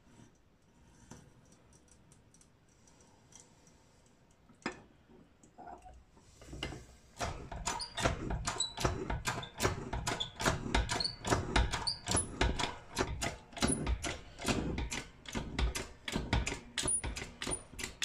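A keyway broach being forced through a gear's bore by a hand-pumped bench hydraulic press: after a few light clicks, a rapid run of sharp clicks with some high squeaks starts about seven seconds in as the broach teeth cut the keyway.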